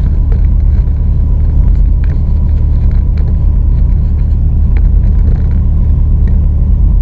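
Semi truck's diesel engine running, heard inside the cab as a loud, steady low drone, with a few faint ticks.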